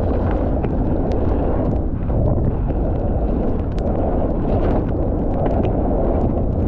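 Wind buffeting the camera microphone during a fast mountain-bike descent on a wet trail, with tyre rumble and scattered sharp rattles and clicks from the bike.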